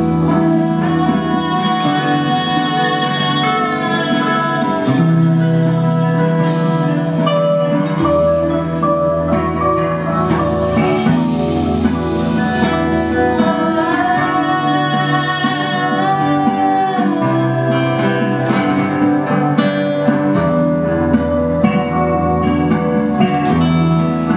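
A live band playing a song, with acoustic guitar among the instruments. Held notes ring over a bass line that changes note every few seconds.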